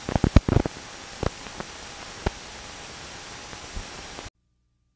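Steady static hiss with scattered crackles and pops, an old-film noise effect. Several pops come close together at first, then single ones, and the sound cuts off to silence about four seconds in.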